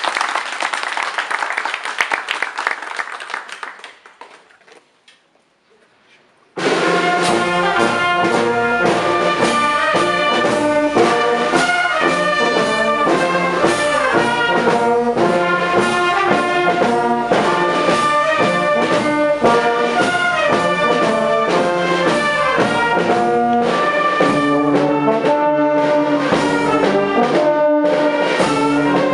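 Applause fading out over the first few seconds. After a brief pause, a brass band of tubas, euphonium and trombones starts playing abruptly and keeps playing steadily.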